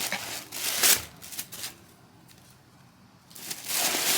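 Bristle brush scrubbing along a window frame track in a few short rustling strokes. After a quiet pause, a longer, denser rustle starts near the end.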